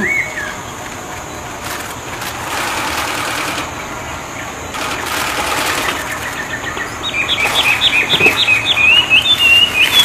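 A songbird singing: a short note at the start, a quieter stretch, then from about seven seconds in a fast run of sharp, repeated notes, about six a second, that runs into a continuous warbling trill near the end.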